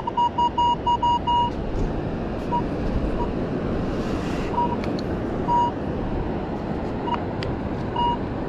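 Metal detector signalling a buried target with short, high, same-pitched beeps: a quick run of about eight in the first second and a half, then single beeps at intervals as the coil sweeps back and forth over the spot. The beeps sit over a steady rushing background.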